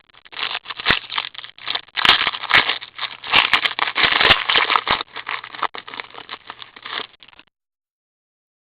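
A hockey card pack's wrapper crinkling and crackling as it is handled and torn open, with a faint low hum underneath. The sound stops abruptly about seven and a half seconds in.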